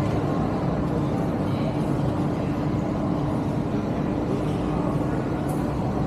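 Steady shopping-mall atrium ambience: a constant low hum and wash of noise with one steady droning tone running underneath.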